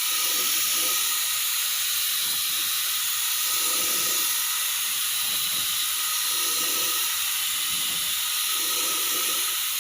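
Compressed-air paint spray gun spraying, a loud, steady hiss of air and atomised paint.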